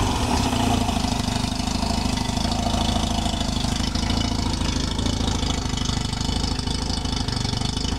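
Mazda 13B two-rotor rotary engine idling steadily with a fast, even pulsing note, carbureted, its ignition fired by a Megasquirt2 from a modified crank angle sensor on its first run.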